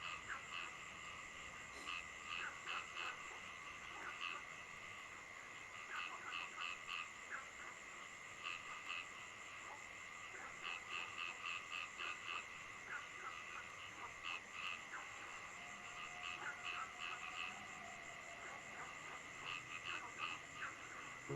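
Frogs calling in short runs of quick croaks every few seconds, over a steady high-pitched night chorus.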